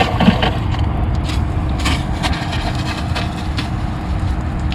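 Campervan water pump running with a steady hum as the outdoor shower hose sprays water, over a steady low rumble.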